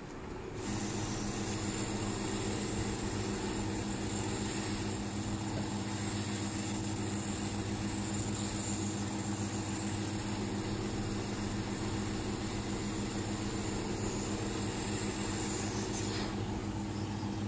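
Hot-air rework station blowing on a circuit board to melt the solder under a faulty USB power IC: a steady hiss of air over a low hum, starting about a second in. The hiss stops shortly before the end while the hum carries on.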